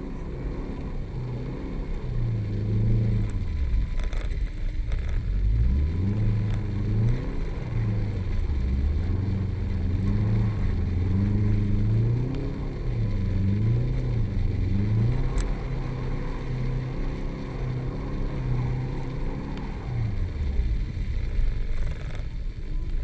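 A Subaru's engine revving up and down repeatedly as the car is driven hard, its note rising and falling many times, with a few deep drops and a falling-off near the end.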